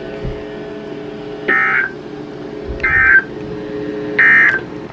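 Emergency Alert System end-of-message data burst: three short, identical bursts of digital modem screech, each under half a second and about 1.3 s apart, marking the end of the alert. A low, faint steady hum comes before the first burst.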